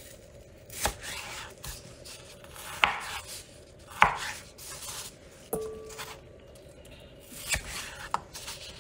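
Kitchen knife cutting slightly frozen chicken breast into cubes on a plastic cutting board: irregular knocks of the blade against the board, about one every second or two, one of them ringing briefly a little past halfway.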